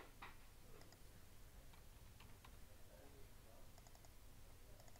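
Near silence with a few faint computer mouse clicks, single and in quick pairs.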